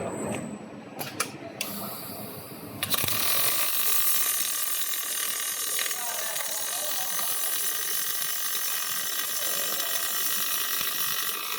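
Robotic arc welder striking its arc about three seconds in and laying a weld segment on a fan impeller, a steady sizzling hiss, after a few short clicks.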